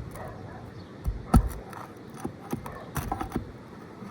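Flat bar prying at roofing nails under asphalt shingles: a sharp knock about a second in, then a few lighter clicks and taps of metal on nail and shingle.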